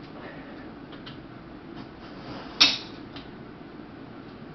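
Light ticks and clicks of a plastic-and-steel folding utility table being handled, with one sharp clack about two and a half seconds in and a lighter click just after.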